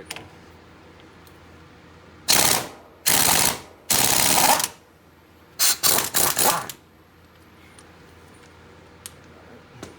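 Impact wrench with a 30 mm deep impact socket hammering loose the axle center nut on a UTV's rear hub: three loud rattling bursts, then a quicker run of short bursts about six seconds in as the nut spins off.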